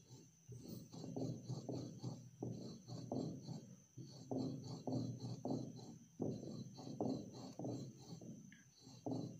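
Pestle grinding powder in a large mortar, a rhythmic scraping and grating at about two to three strokes a second, with a short gap near the end.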